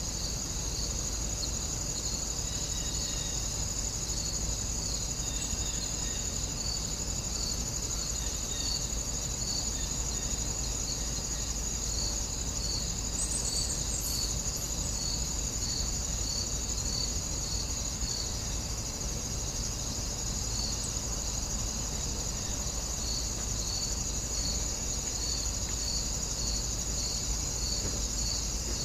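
Insects chirping in a steady chorus: a continuous high trill with a shorter chirp repeating about three times every two seconds, over a low rumble.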